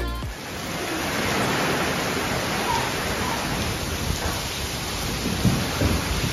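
Heavy rain pouring down in a steady rush, just after a few bars of music cut off.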